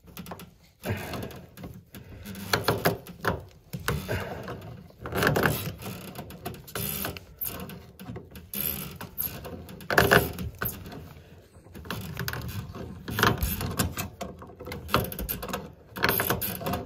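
Steel pipe wrench working on a seized brass tub drain pipe: irregular metal-on-metal scraping, clicking and knocking as the jaws grip and slip.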